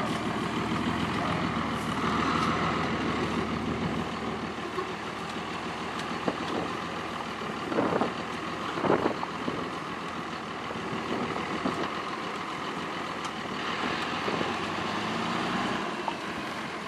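Delivery truck engine running steadily while manoeuvring, with a couple of short knocks about eight and nine seconds in.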